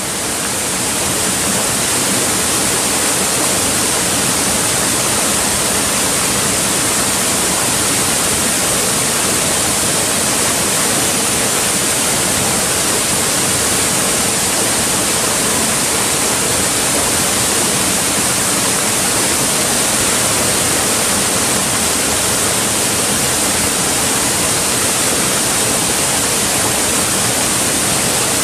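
Mountain valley stream rushing over rocks, a steady, loud hiss of running water that fades in at the start.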